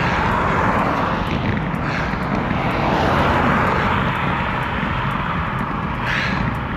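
Motor traffic passing at speed on a main road: the rush of vehicles swells and fades twice, over a steady low rumble of wind on the microphone of a moving bicycle.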